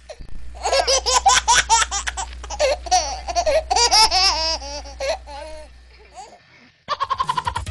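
A person laughing hard in quick, repeated high-pitched peals for about six seconds, then trailing off. Music with a beat starts near the end.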